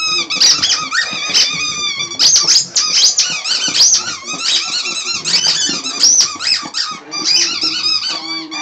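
Squeaky dog toy squeaking over and over as a dog chews it, in rapid high squeals that rise and fall, with a short lull about seven seconds in.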